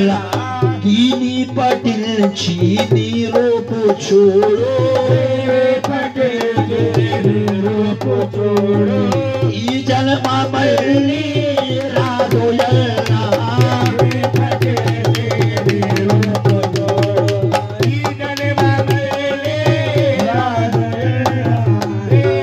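Sufi devotional song (kalaam) sung into a microphone, the melody rising and falling, over a steady low drone and quick rhythmic percussion strikes.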